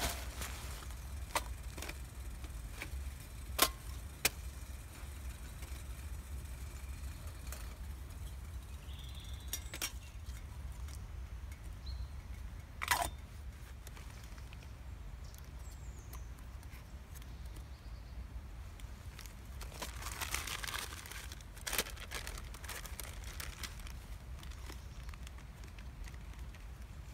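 Scattered clinks and knocks of metal camping cookware and a cup being handled while coffee is made, with a short rustle of paper or a bag about twenty seconds in.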